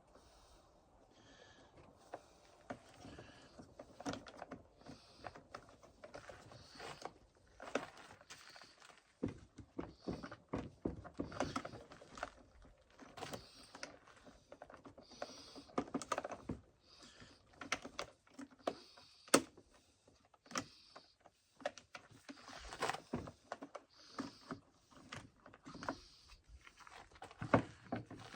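Irregular light clicks, taps and rattles of hands working on a chainsaw, taking the top cover off to get at the air filter, with a few sharper clicks, the sharpest about two-thirds of the way through.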